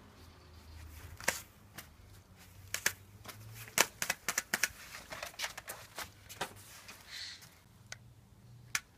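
A string of light, irregular clicks and taps, thickest around the middle.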